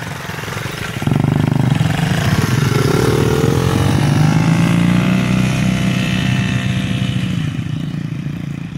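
Small petrol engines of children's mini quad bikes and a mini dirt bike pulling away together: the engines rev up sharply about a second in with a rising pitch, run steadily, then fade as the bikes ride off.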